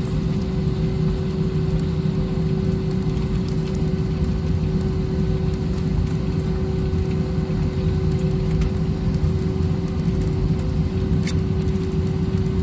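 Jet airliner cabin noise: a steady low rumble with a constant hum that does not rise or fall.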